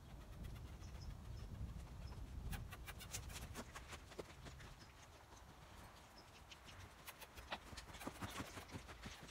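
A saddled three-year-old mustang moving in a sand pen: hoofbeats and saddle tack rattling, heard as two spells of sharp irregular clicks, one about a third of the way in and another near the end.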